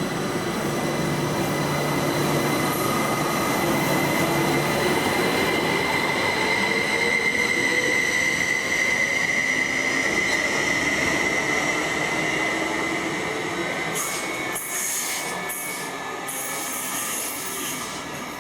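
Train moving past with a sustained high-pitched wheel squeal over the rumble of the wheels, louder in the middle and fading away towards the end, with some rattling near the end.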